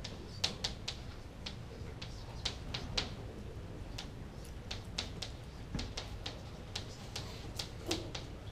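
Chalk writing on a chalkboard: a run of irregular sharp taps and short scratches as the chalk strikes and drags across the board.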